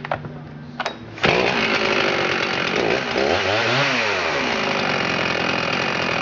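Husqvarna 372 XP 71cc two-stroke chainsaw idling with a few sharp clicks, then about a second in revved sharply to high speed and held there, with a brief waver in pitch midway; the owner says it runs good.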